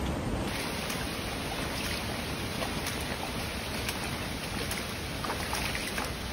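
Shallow stream water running over rocks, a steady rushing sound with a few faint clicks.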